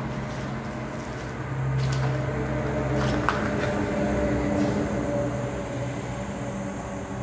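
A steady low mechanical hum with several held tones, swelling about two seconds in and easing off toward the end, with one sharp click a little after three seconds.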